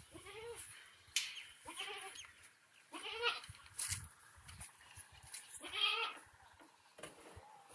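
Goats bleating: four short, wavering bleats a second or more apart, with a few light clicks between them.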